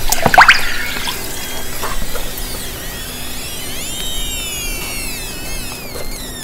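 Soaked leather squealing as wet hands rub and flex it: a short rising squeak about half a second in, then a longer wavering squeal lasting about three seconds.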